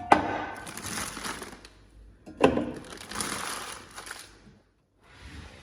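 Drink cans and bottles being handled in a kitchen pantry drawer: two sharp knocks, about two seconds apart, each followed by a second or so of rattling and rustling.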